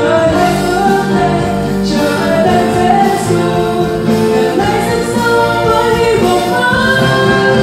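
A woman singing a worship song into a microphone, with a band of stage piano, keyboard, acoustic guitar, bass and drums playing behind her.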